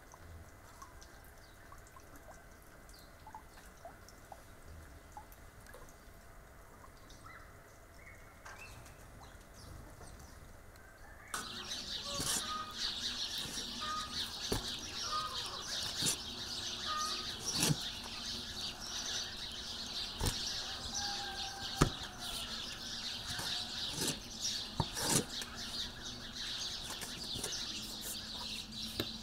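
Birds chirping, faint at first; about a third of the way in it turns into a louder, dense chorus of birdsong. Over it, a cleaver chops through beef into a wooden cutting board with several sharp knocks at uneven intervals.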